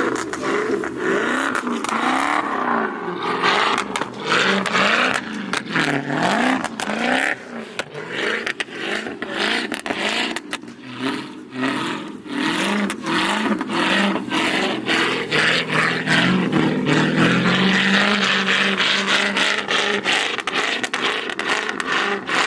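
Scat Pack car's V8 engine revving up and down over and over as the wheels spin in deep snow, with many sharp scraping clicks from the car working against the snow. The car is stuck.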